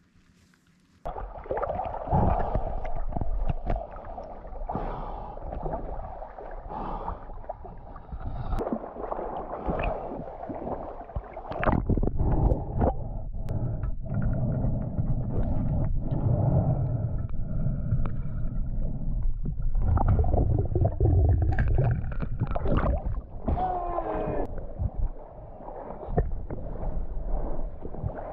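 Water gurgling and sloshing around the camera, with frequent knocks and clicks, starting suddenly about a second in.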